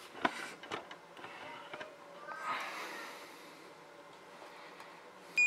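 Light clicks and knocks of a Trimble CFX-750 display being handled on a bench, with a soft rush of noise about two and a half seconds in. A short, high electronic beep from the unit sounds right at the end.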